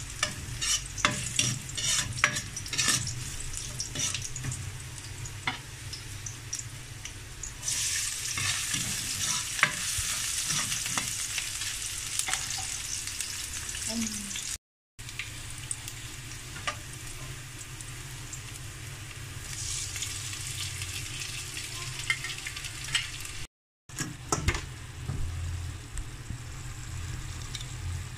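Garlic and onion frying in oil in a wok, a steady sizzle that swells twice, while a metal spatula stirs and scrapes, clicking against the pan. The sound cuts to silence twice for a moment.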